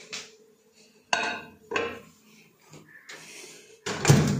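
A ceramic plate clinks a couple of times as it is set down on a microwave turntable. Then the microwave door is pushed shut with a louder clunk near the end.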